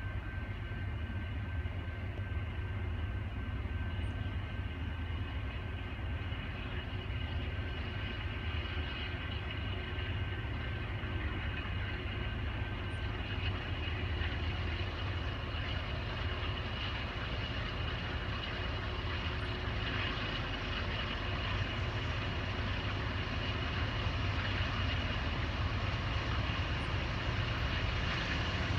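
Low, steady rumble of an approaching CSX freight train's diesel locomotives still far off, slowly growing louder, with a thin steady high tone over it.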